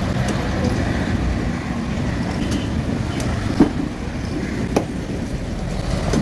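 Steady low rumble of trucks and traffic on the road, with a few sharp knocks of a heavy curved knife chopping through a fish into a wooden board: the loudest about three and a half seconds in, another near five seconds.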